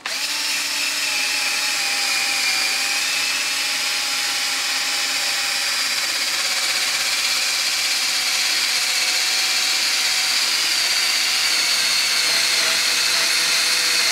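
Makita drill running a wire brush wheel against a steel wheel hub face, scrubbing off surface rust so the new brake disc can seat flat. The motor runs at a steady, even whine with the brush scraping throughout.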